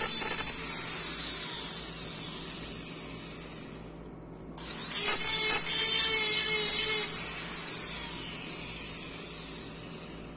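Dental lab handpiece with a bur grinding the edge of an acrylic orthodontic retainer plate: loud bursts of grinding at the start and again from about five to seven seconds in, each time followed by the handpiece's high whine fading away.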